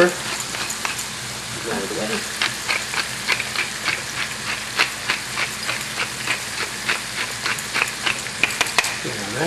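Mushroom and garlic sauce sizzling and crackling in a nonstick skillet over the heat, with a wooden spoon stirring through it. The sizzle is a steady hiss broken by frequent sharp pops.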